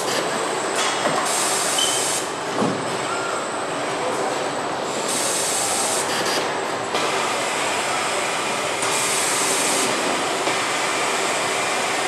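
Car body-shop machinery: industrial robots at work in a steady mechanical din, cut by three hissing bursts of one to two seconds each.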